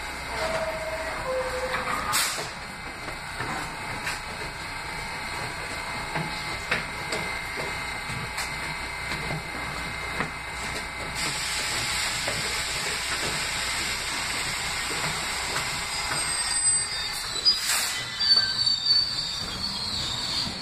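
New York City subway train at a station: a two-note falling chime about half a second in as the doors close, then the train pulling out, its motor and wheel noise swelling from about eleven seconds in. High wheel squeal and several sharp clanks follow near the end as it rolls away.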